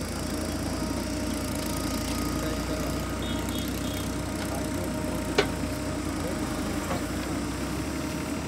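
JCB 3DX backhoe loader's diesel engine running steadily under load while the backhoe digs soil and lifts it over a tractor trolley, with one sharp clank about five and a half seconds in.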